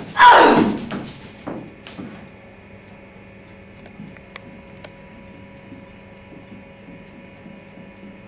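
A single loud whoosh falling in pitch, lasting under a second, as a frozen leg of lamb is swung like a club in a blow; two or three faint knocks follow, then only a steady low hum.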